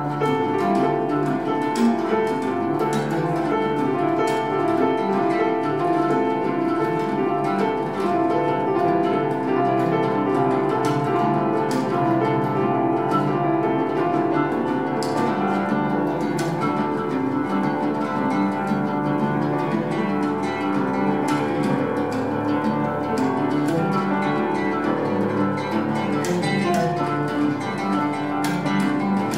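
Oud and grand piano playing together in a live duet, the oud plucking many quick notes over the piano.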